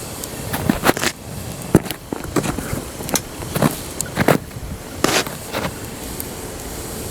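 Wood campfire crackling, with a dozen or so irregular sharp pops and cracks over a steady low rumble.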